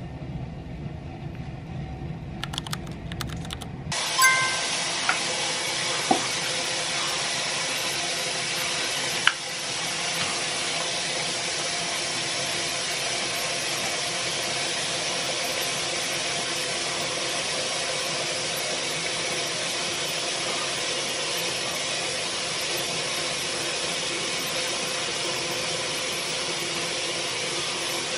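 A low hum, then about four seconds in a sink tap is turned on and water runs steadily, with a few small knocks and clicks as it starts and a sharper click a few seconds later.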